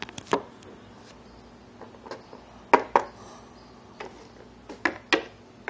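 Scattered sharp taps and knocks of a small plastic Littlest Pet Shop figure being handled and set down on a desktop, a few in quick pairs.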